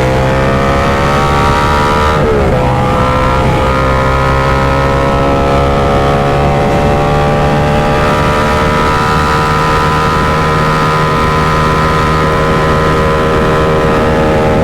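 Motorcycle engine under way: the revs drop sharply with an upshift about two seconds in, then climb slowly and steadily under throttle.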